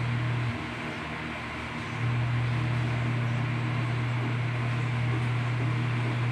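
A steady low hum over a constant hiss; the hum cuts out about half a second in, comes back about two seconds in, and stops near the end.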